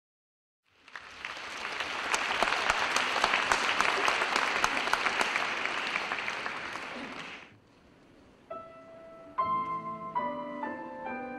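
Audience applauding for about six seconds, then fading away. After a short pause, a grand piano begins playing slow, spaced notes and chords.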